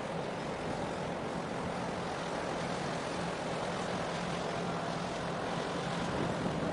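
Steady low mechanical hum from a large container ship moving past close by, mixed with a haze of wind and water noise.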